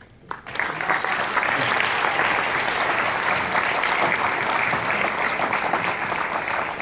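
Audience applauding: a few scattered claps, then from about half a second in a full, steady round of clapping from many people.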